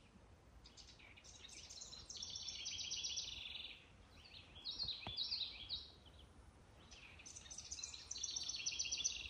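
Songbirds singing in the treetops, faint: a fast trill of about two seconds, then a shorter phrase of a few separate notes, then the trill again near the end.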